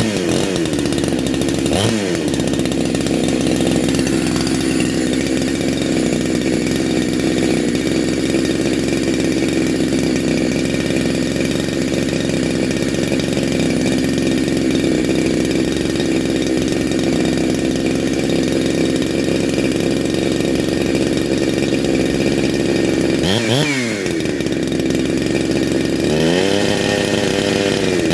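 A freshly big-bored Neo-tec NH872 two-stroke chainsaw, a Husqvarna 372XP clone, running on a heat cycle just after a cold start. It idles steadily, with a quick throttle blip about two seconds in. Near the end it is blipped again and then held revved up for a couple of seconds before dropping back.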